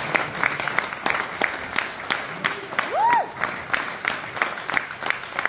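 Small audience applauding at the end of a song, the clapping thinning out to a few steady claps about three a second. One voice calls out briefly about three seconds in.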